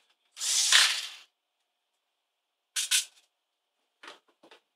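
Cordless electric screwdriver running for about a second as it backs a screw out of a laptop's plastic bottom case. A short double burst follows about three seconds in, then a few light clicks near the end.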